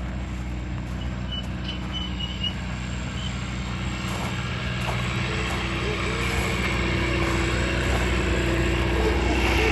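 Engine of a farm-park ride train running steadily with a low hum, growing gradually louder.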